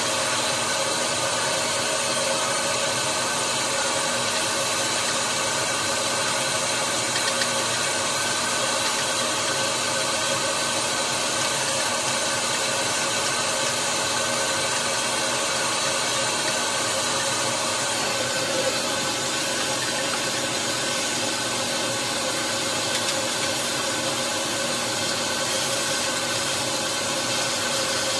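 Shop vacuum running steadily, its hose sucking dirt and debris from around an engine's spark plug holes. Its pitch drops slightly about two-thirds of the way through.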